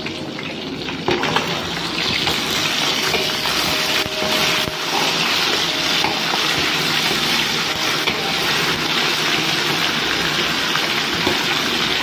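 Marinated chicken pieces deep-frying in hot oil in a steel pan: a steady, dense sizzling that gets louder about a second in.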